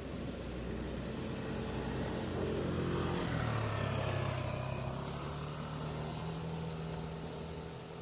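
A motor vehicle engine passing by, growing louder to a peak about halfway through and then fading away, its pitch shifting as it goes.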